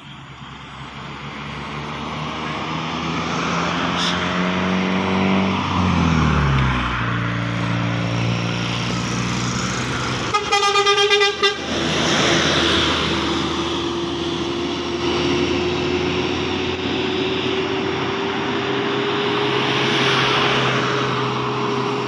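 Makmur intercity bus passing close by on the road: engine and tyre noise rising, the engine pitch falling as vehicles go past, then a burst of rapid horn toots about ten seconds in as the bus draws level, followed by steady road noise with a level drone.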